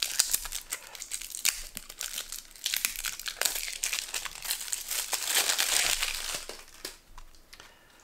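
Plastic shrink-wrap crinkling and tearing as it is peeled off a deck of game cards, a dense crackle made of many small snaps. It is loudest around the middle and dies away near the end.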